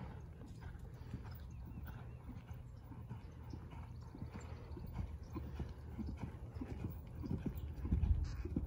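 Horse's hooves cantering on sand arena footing, a run of dull thuds that grows louder as the horse comes close, loudest near the end.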